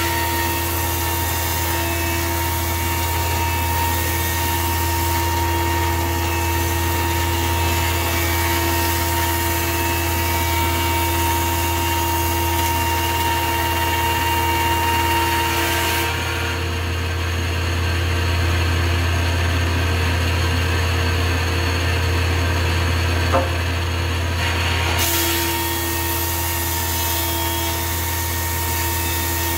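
Grizzly G0891 15-inch planer with a helical carbide cutterhead running and planing wood, over a steady low machine hum. The high cutting hiss stops about halfway through and comes back near the end, with a single sharp click just before it returns.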